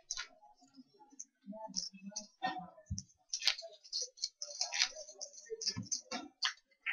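Poker chips clicking as players handle and stack them at the table: a run of irregular, quick, sharp clicks.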